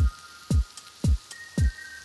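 Background music with a steady kick-drum beat, about two beats a second, under held high synth notes.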